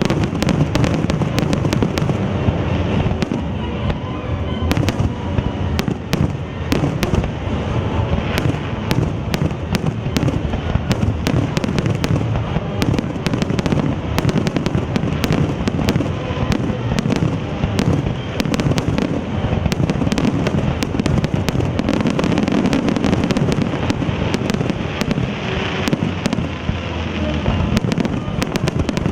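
Aerial fireworks in a dense, continuous barrage: many shells bursting in rapid succession, with sharp cracks layered over a steady low rumble of booms.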